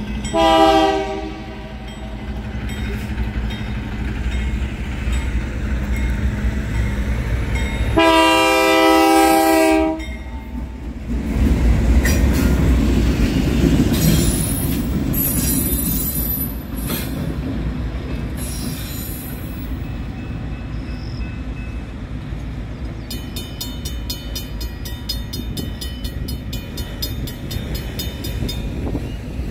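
Two BNSF GE C44-9W diesel locomotives running light with no cars, sounding a multi-chime horn in a short blast about half a second in and a longer blast about eight seconds in, then passing close with loud engine and rail rumble that fades away. A fast, even clatter comes in near the end.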